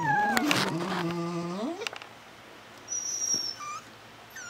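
Miniature American Eskimo puppies whining and whimpering: a long, low cry over the first second and a half that slides upward at its end, then a thin, high whine about three seconds in and a brief one just after.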